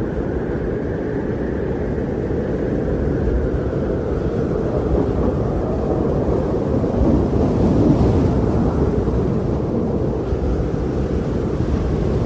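Steady low rumbling wind, an even noise that swells slightly about two-thirds of the way through.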